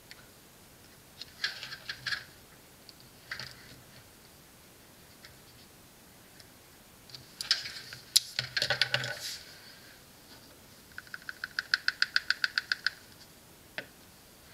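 Handling of multimeter test probes and small camera batteries on a wooden table: scattered light clicks and knocks, a short clatter around the middle, then a quick even run of about sixteen ticks near the end.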